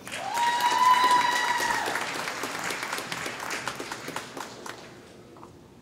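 Audience applauding, with one long high-pitched cheer held over the clapping for about the first two seconds. The applause then dies away toward the end.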